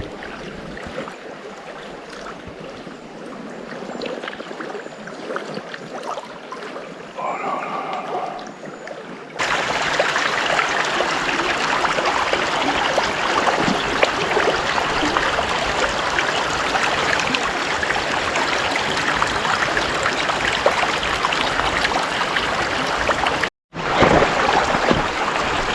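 River water flowing and rippling as a steady rush, fainter at first and then much louder from about a third of the way in, where it jumps up suddenly; it drops out for an instant near the end.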